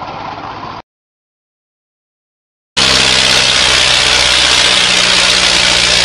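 A brief stretch of small-engine noise cuts off into about two seconds of dead silence, then tractor diesel engines come in loud and steady, running hard under heavy load as two tractors pull against each other, with their tyres spinning in the dirt.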